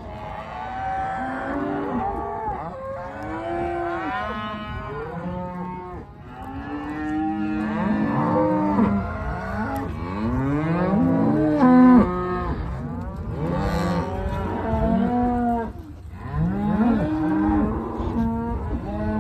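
A herd of cows and calves mooing and bawling, many calls overlapping at different pitches; the cattle are stirred up and thirsty after being moved. One call about twelve seconds in is the loudest.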